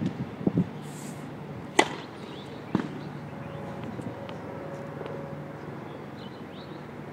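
Sharp pops of a tennis ball striking a hard court or racket: faint ones near the start, a loud one about two seconds in and another about a second later, over a low steady hum.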